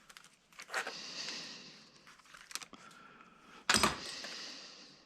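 Copper wire being run through a drill-driven Stripmaster wire stripper, its insulation slit: a hiss in two stretches of about a second each, with sharp clicks and one loud knock a little after the middle.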